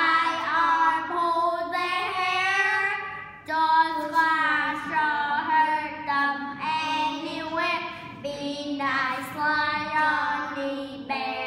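Two young boys singing a children's song together in English, line by line, with short breaks between phrases about three and a half and eight seconds in.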